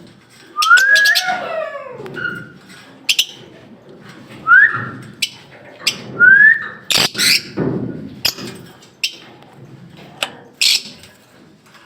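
Pet lovebirds calling: sharp, shrill, very brief chirps scattered throughout, with three short rising squeaky calls.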